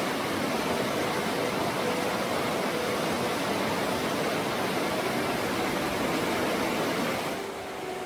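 Rushing water of a rocky mountain stream and small waterfall, a steady, even rush that cuts off sharply near the end.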